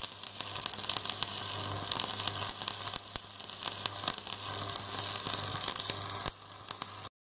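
Sparks sound effect: a dense sizzling crackle full of sharp clicks over a steady low hum. It drops back about six seconds in and cuts off suddenly just before the end.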